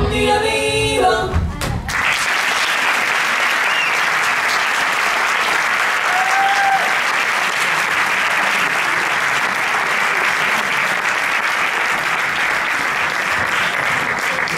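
A song with singing stops about two seconds in, and an audience applauds steadily for the rest.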